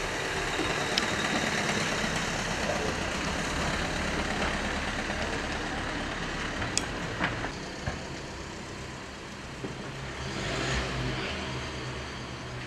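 Steady low engine-like hum under a hiss, with a couple of sharp clicks about seven seconds in, after which the hiss is quieter.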